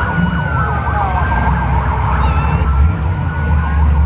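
A siren wailing and yelping, with a held tone among its rising and falling notes, over the low running of slow-moving classic car engines. The engine sound grows louder about three seconds in.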